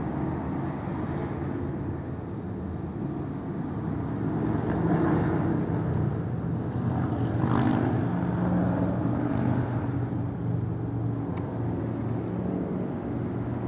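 A steady low engine drone from motor traffic or a running vehicle, swelling a little in the middle.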